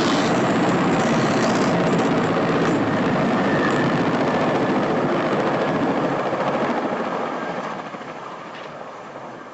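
Helicopter running, a steady dense noise of engine and rotor that fades away over the last two seconds or so.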